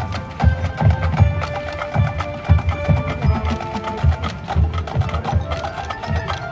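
A marching band's percussion section playing: a dense pattern of sharp clicking strokes over deep drum hits, with pitched mallet notes and held tones on top.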